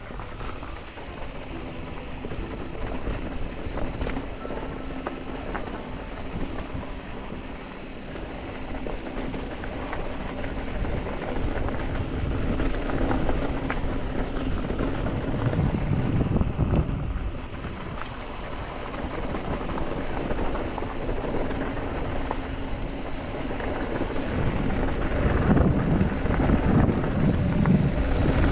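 Yeti SB165 mountain bike riding fast down a rocky dirt trail: tyres crunching over gravel, with clicks and rattles from the bike over bumps and wind buffeting the microphone. It gets louder in the second half and again near the end as the speed picks up.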